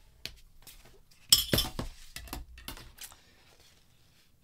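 Steel ruler and pen set down on a tabletop: a quick run of sharp metallic clinks and knocks, loudest about a second and a half in, then a few lighter taps as the card is picked up.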